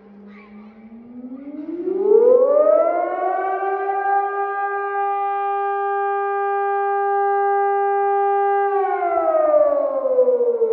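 Civil-defence warning siren during a test of the public warning system. Its pitch climbs over about three seconds, holds one steady tone for about five seconds, then starts to fall near the end.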